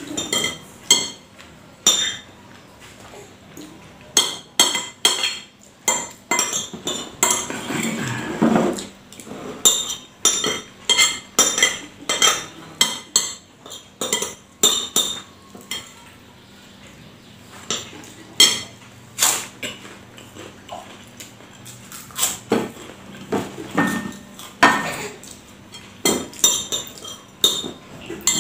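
Metal spoon clinking and scraping against a ceramic bowl while eating, a steady run of quick, sharp clinks with short pauses between.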